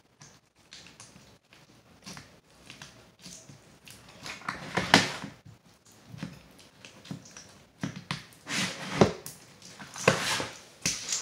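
Homemade clear-glue slime being squished and poked by hand, giving irregular bursts of sticky, crackly noise, loudest about five seconds in and again twice near the end.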